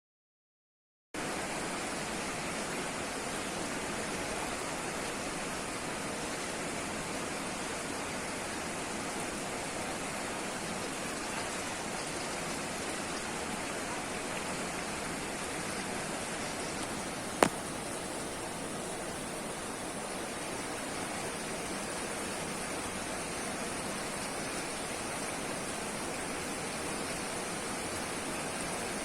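Steady rush of river water, an even, unbroken noise that starts about a second in, with one sharp click in the middle.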